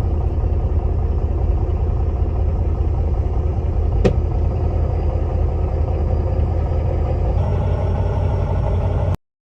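Heavy truck's diesel engine idling steadily, with a single sharp click about four seconds in; the sound cuts off abruptly near the end.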